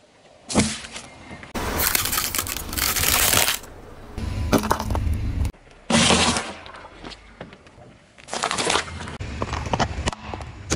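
A car tyre rolling onto and crushing a run of different objects in quick succession, among them a juice carton, a tray of eggs and a plastic toy truck. The sound comes as a string of separate crunching and cracking bursts with quieter gaps between them.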